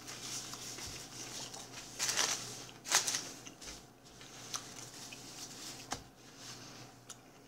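Quiet eating sounds at a table: hands handling fried food and paper sauce packets, with two short louder rustles about two and three seconds in.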